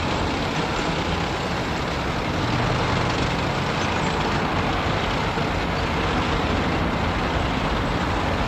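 A column of heavy military vehicles driving past, their engines making a steady, dense rumble.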